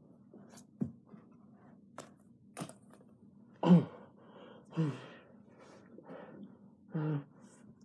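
A person's wordless groans while lying on the floor: three short ones, the loudest falling in pitch about halfway through, among a few faint clicks and knocks of movement.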